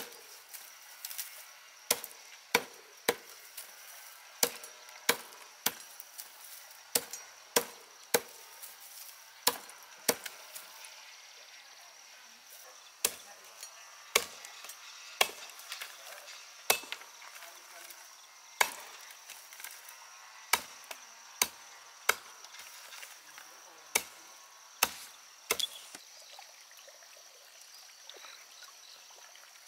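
Cleaver chopping through dry, brushy plant stems, with sharp chops about once a second that stop a few seconds before the end.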